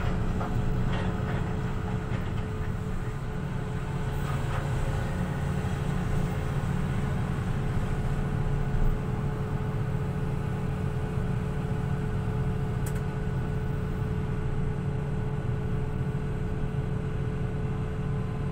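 Excavator's diesel engine running steadily, heard from inside the operator's cab as a constant low hum with a steady higher tone over it.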